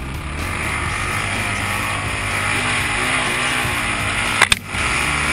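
Off-road vehicle engine running on a sandy dune trail, its pitch wavering with the throttle. About four and a half seconds in there is one sharp crack as the vehicle pushes through close brush, then the engine runs on.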